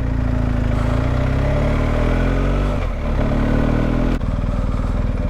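Motorcycle engine accelerating up through the gears: its pitch rises, drops at a gear change about three seconds in, rises again, and drops at another shift about a second later.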